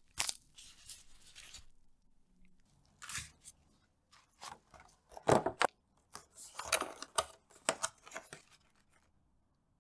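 A clear plastic gift box and its packaging handled with gloved hands, with a sticker seal peeled and pressed on. It makes a string of short, irregular plastic crinkles and clicks, loudest about five seconds in and again around seven seconds.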